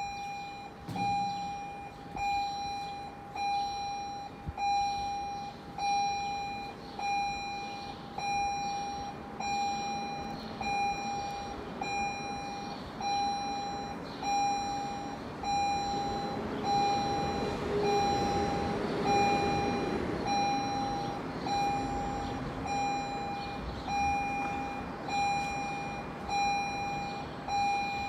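A steady series of electronic warning beeps, one pitched tone repeating evenly and without a break. Faint engine rumble from a distant approaching train rises in the middle.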